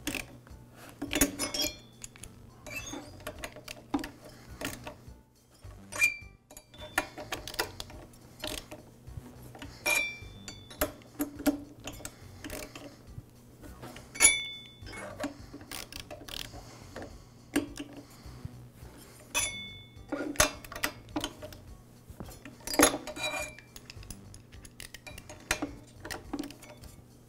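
Irregular metallic clicks and clinks, some ringing briefly, as a long screwdriver turns and tightens the cylinder screws on a two-stroke backpack blower engine.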